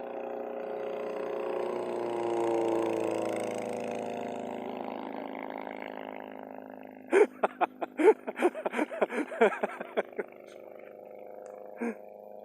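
Engine and propeller of a homebuilt Hummel Ultracruiser light aircraft making a low pass: the drone swells to its loudest about two to three seconds in, then drops slightly in pitch and fades as the plane moves away. From about seven to ten seconds a quick run of loud, sharp bursts close to the microphone cuts across it, with one more near the end.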